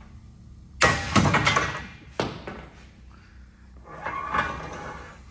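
Expert ratchet giving way under about 750 foot-pounds of load: a sudden loud metal bang about a second in, a clatter of knocks, then a second sharp bang, and a softer rattle near the end.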